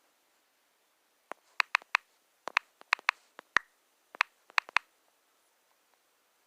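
Rothco zipper-pull folding knife clicking as it is worked in the hand: about fifteen sharp clicks in three quick clusters, the blade and frame lock snapping.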